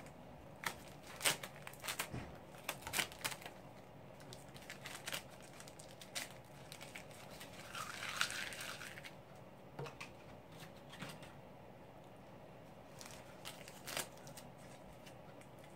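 Blue masking tape being peeled off a primed wooden mandolin and crumpled in the hands: faint, irregular crackling and crinkling, with a longer rustle about eight seconds in.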